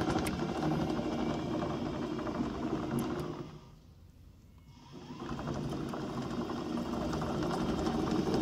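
Remote-control rubber-track chassis driving, its brushless DC gear motors and tracks running steadily. The sound drops away for over a second midway, then the chassis runs again.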